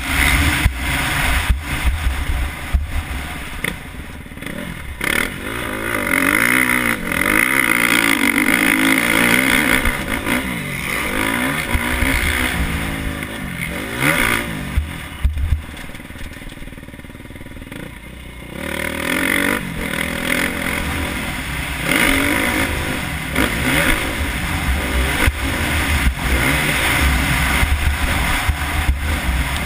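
KTM 350 SX-F's single-cylinder four-stroke engine revving up and down as the motocross bike is ridden around a dirt track, with knocks and clatter over the bumps. The revs drop off for about two seconds past the middle, then pick up again.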